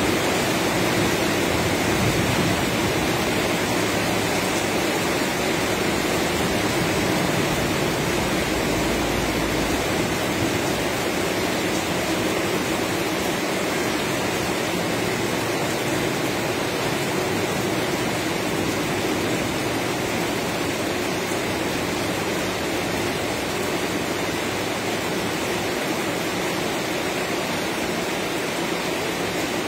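Heavy rain falling steadily, an even unbroken hiss of rain on the porch's corrugated metal roof.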